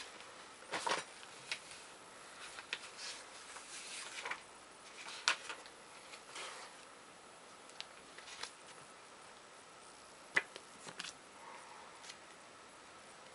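Plastic bag and paper packaging being handled, crinkling and rustling in scattered short bursts, with quiet gaps between them.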